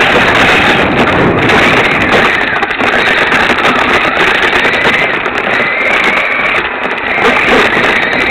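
Radio-controlled truck driving over dirt, heard from a camera on its body: a loud, continuous rattling rush with a motor whine that rises in pitch several times as it accelerates.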